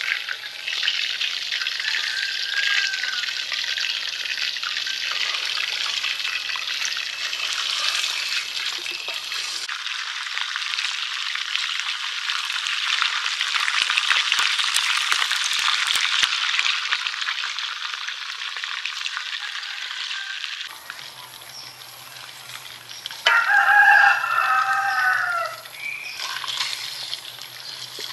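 Whole fish deep-frying in hot oil in a two-handled metal wok, a steady hiss and sizzle. A rooster crows loudly about three-quarters of the way through.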